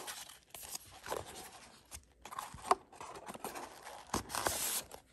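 Paper rustling and crinkling as boxed jewelry is handled, with a few light knocks.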